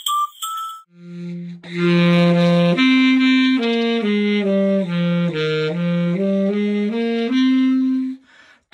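A clarinet played solo: a slow tune of single notes stepping up and down, ending on a longer held note.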